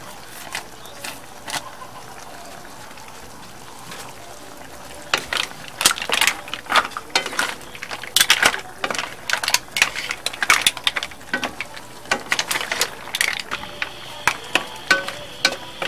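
Mussel shells clattering against a metal wok and each other as a wooden spatula stirs them, a dense run of sharp clicks and knocks from about five seconds in that thins out near the end.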